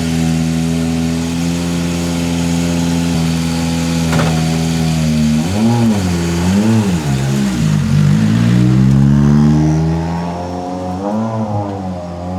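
A rally car's engine held at steady revs for about five seconds. Then it is revved up and down a few times, and its pitch rises in a long climb as it accelerates, with more revving near the end. There is a brief knock about four seconds in.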